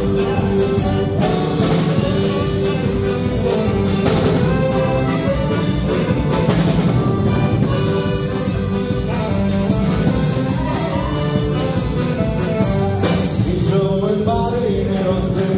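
Live band playing Polish folk dance music on accordion, saxophone, acoustic guitar and drum kit, with a steady dance beat.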